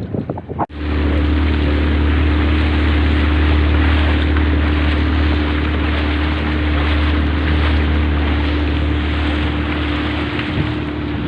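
Pongrass Surfmaster boat's motor running at a steady cruising speed, with wind and water rushing past the hull. Starts abruptly just under a second in.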